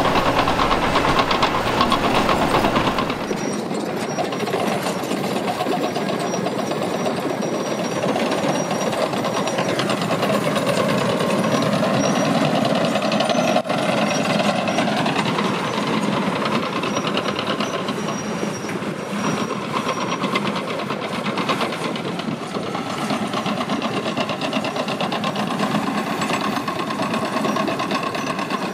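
Heavy diesel earthmoving machinery at work, a large excavator loading articulated dump trucks: engines running continuously under load, their pitch rising and falling as the machines work. A deep low rumble in the first three seconds drops away after that.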